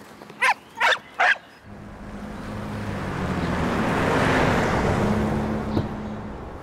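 A small dog barks three times in quick succession. Then a Nissan Juke drives past at speed: its tyre and engine noise swells to a peak and fades away.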